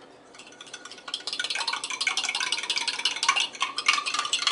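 A utensil beating egg and milk in a glass measuring cup: fast, steady clinking against the glass that starts about a second in, with a faint ringing of the glass.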